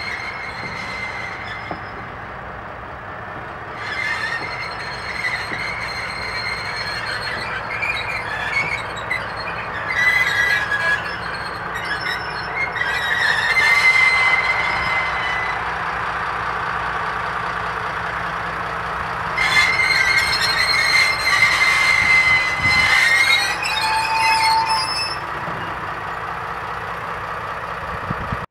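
6Dg diesel shunting locomotive passing slowly with a rake of flat wagons loaded with rails, its engine and wheels rumbling steadily. Repeated high-pitched wheel squeals rise and fade, loudest and longest from about twenty to twenty-five seconds in.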